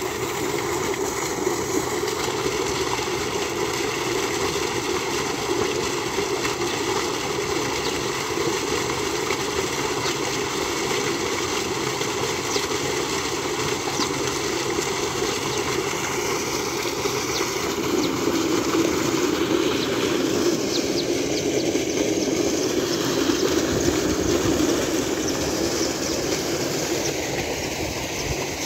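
Water gushing steadily out of a pump's steel discharge pipe and splashing into a concrete tank, a constant rushing that swells a little past the middle.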